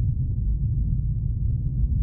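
Steady low rumble of a car driving, its road and engine noise heard from inside the cabin, with nothing in the high range.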